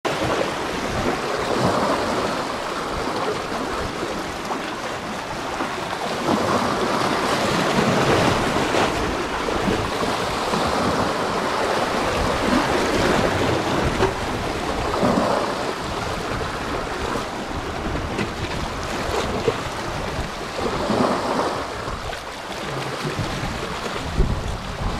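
Wind buffeting the microphone over the wash of sea waves, a steady noise that swells every few seconds.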